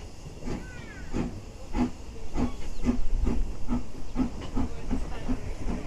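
Saddle-tank steam locomotive working under steam: a regular exhaust chuff with a hiss, the beats coming quicker as it picks up speed.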